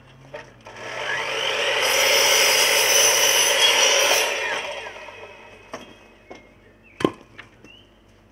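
Sliding mitre saw cutting through a wooden board. The sound builds for about three seconds as the blade goes through the wood, then dies away. A few light clicks follow and a single sharp knock about seven seconds in.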